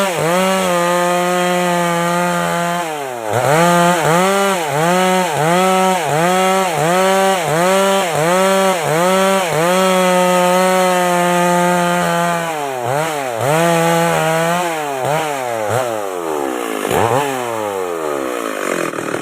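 MS 385 chainsaw running at high revs while sawing timber into boards. The engine pitch dips and recovers about twice a second as the chain loads up in the cut, with a few steadier stretches. From about two-thirds of the way in it rises and falls more widely, as the throttle and the load change.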